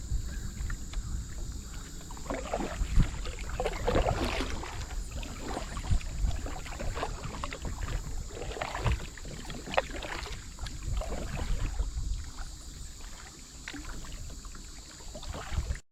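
Kayak paddle strokes dipping and splashing in the river every second or two, over a low rumble.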